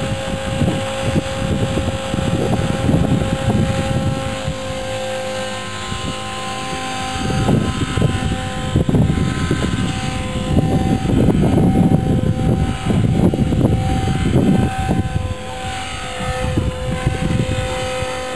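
Small radio-controlled helicopter running, its motor and rotors giving a steady high whine with a couple of higher tones above it; the whine fades for a while in the middle and comes back strongly near the end as the helicopter is airborne. A loud, gusty low rumble of wind on the microphone runs under it.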